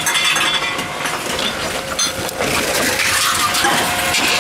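Tomra T-63 reverse vending machine taking in aluminum cans, its motor running while the cans clatter through and are crushed, with a sharp click about two seconds in.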